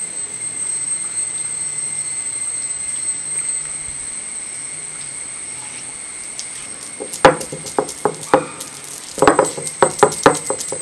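A stone roller knocking on a flat wet grinding stone as fresh green peppercorns are crushed: one sharp knock about seven seconds in, then a quick run of knocks near the end. Before that there is only a steady low background hum.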